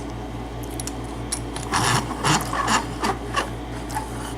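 A run of short metal scrapes and clicks as the lock cylinder and tools are handled, clustered in the middle, over a steady low electrical hum.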